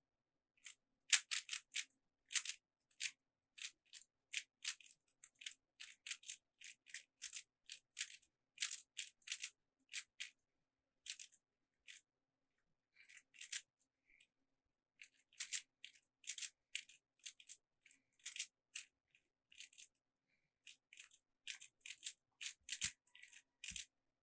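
Plastic Rubik's Cube layers being twisted by hand in quick succession: a string of short clicks, several a second, with a couple of brief pauses about halfway through.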